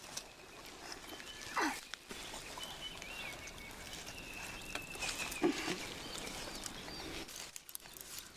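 Animal calls over a faint outdoor background. One loud call about one and a half seconds in sweeps steeply down in pitch, and a short call follows about five and a half seconds in.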